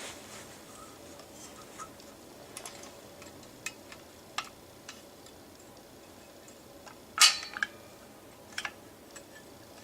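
Scattered light clicks and knocks from a vintage fire alarm and a hex wrench being handled. The sharpest clatter comes about seven seconds in, with a double click shortly after.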